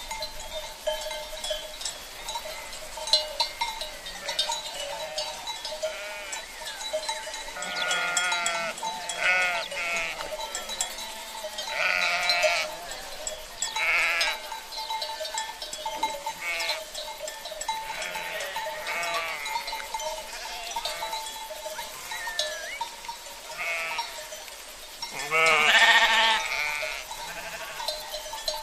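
A flock of sheep bleating, with several calls scattered through and the loudest bleat near the end, over a faint steady tone.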